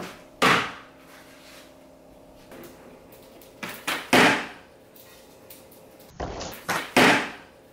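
Plastic water bottle thudding onto a wooden table in bottle-flip attempts: three sharp knocks, about half a second in, near four seconds and near seven seconds, the later two each with a smaller knock just before.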